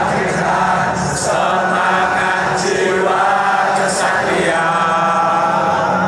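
A large stadium crowd of PSIS Semarang supporters singing their club anthem together, many voices holding long sung notes in unison.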